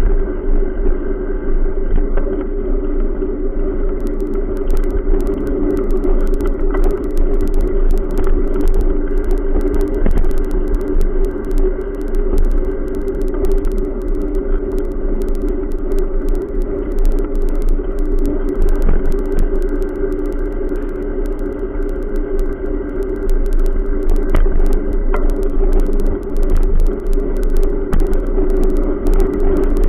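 Steady rumble of road traffic and wind on the microphone of a camera riding on a bicycle along a concrete sidewalk, with a few faint knocks from the bike rolling over the sidewalk joints.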